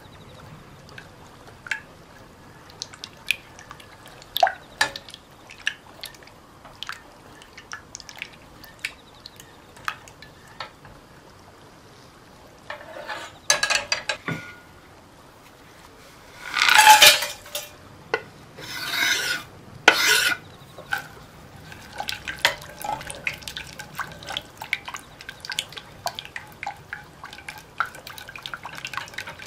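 Wire whisk folding whipped cream in a glass bowl, its wires ticking lightly against the glass over and over. Around the middle come several louder scraping strokes of a spatula against the bowl, the loudest about 17 s in.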